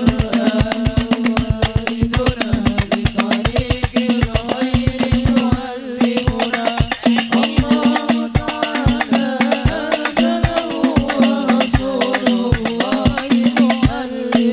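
Live sholawat music: hand-held rebana frame drums beat a fast, dense rhythm under a held low tone. A voice sings a wavering melody over them, most clearly in the middle.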